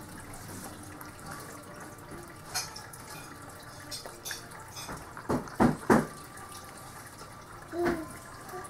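Baby eating puréed sweet potato from a spoon: wet mouth and lip-smacking sounds, with a quick run of three sharp clicks a little past halfway and a brief pitched voice sound near the end.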